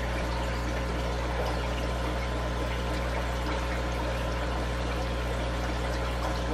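Aquarium filtration running: a steady pour and trickle of circulating water over a constant low hum.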